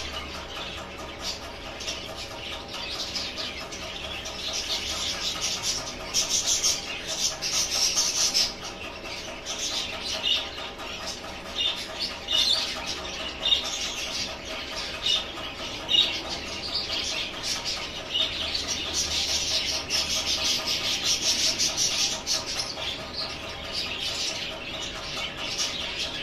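Birds chirping and peeping in a continuous high-pitched chatter, with frequent louder individual chirps, over a faint steady hum.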